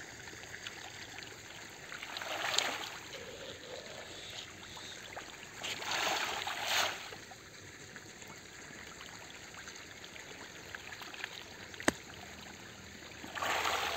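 Pangasius catfish splashing at the pond surface as they take feed pellets, in three bursts about two, six and thirteen seconds in, over a steady trickle of running water. A single sharp click sounds shortly before the last splash.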